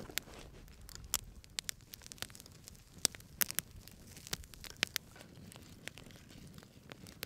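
Wood fire crackling, with irregular sharp snaps and pops.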